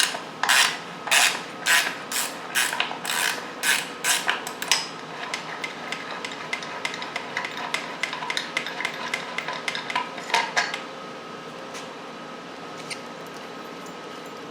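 Ratchet wrench worked in quick repeated strokes, about two a second, for the first five seconds. Lighter scattered clicks and clatter follow until about ten seconds in, then it goes quiet.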